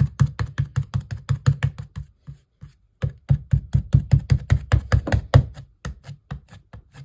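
Hands kneading and squishing a soft slime, making rapid wet clicks and pops, about six or seven a second. A short pause about two seconds in, then a denser run that thins out near the end.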